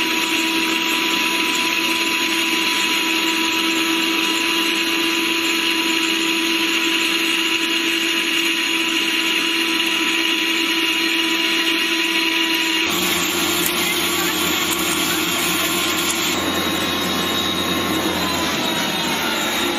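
Electric meat grinder's 2200 W motor running steadily with a constant whine. The sound changes abruptly about two-thirds of the way through and again a few seconds later, and a pitch slides downward near the end.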